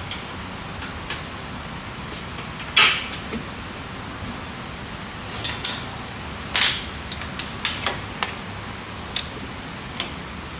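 Scattered metal clinks and knocks of suspension parts and hand tools being fitted into a wheel well, over a steady shop background hiss. The loudest knock comes about three seconds in, and a run of quicker clinks follows in the second half.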